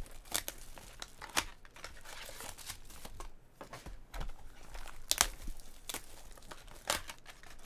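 Trading card pack wrappers crinkling and tearing as packs are opened and the cards handled, with scattered sharp crackles.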